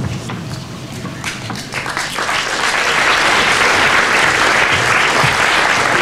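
Theatre audience applauding: scattered claps about a second in swell into dense, steady applause that holds to the end.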